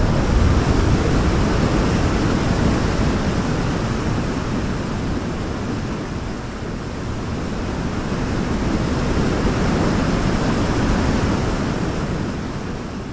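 Steady rushing noise of falling water, easing slightly mid-way, swelling again, then fading out near the end.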